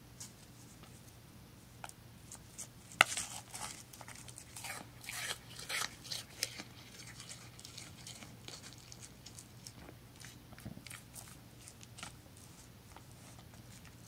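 Mule deer pulling and chewing dry hay: crackling, rustling and crunching, busiest between about three and seven seconds in, with one sharp click near three seconds, then lighter scattered crackles.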